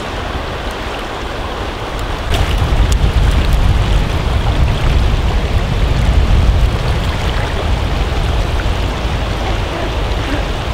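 Steady rush of a fast-flowing mountain river, a continuous noise that grows louder about two seconds in, with a few faint clicks a little after that.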